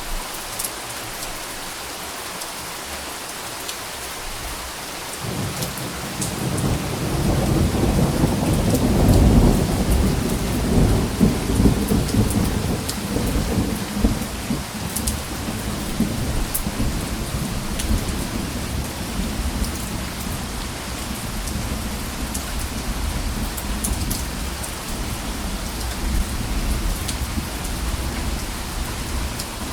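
Steady rain falling, with a long low roll of thunder that swells about five seconds in, peaks a few seconds later and slowly dies away under the rain.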